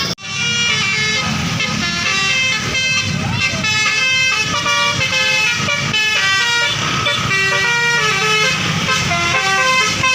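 Bus basuri telolet horn playing a tune of quick stepping notes, with the bus engine running underneath. The sound drops out for a split second at the very start.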